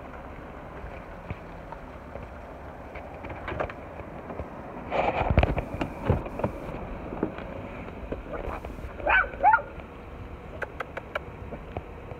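A puppy gives two short, high yelps that bend up and down in pitch about nine seconds in, over a steady background hiss. A louder rustling bump comes about five seconds in.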